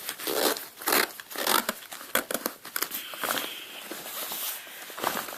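Rustling and crinkling of a Skip Hop All Access diaper bag's wipeable fabric being handled and turned over, in irregular bursts that are loudest in the first couple of seconds.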